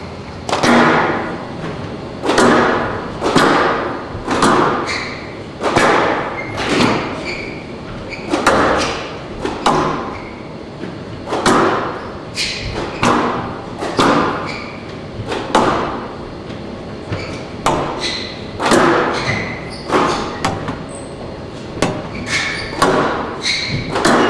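Squash rally: the ball cracks off racquets and the court walls about once a second, each hit echoing in a large hall.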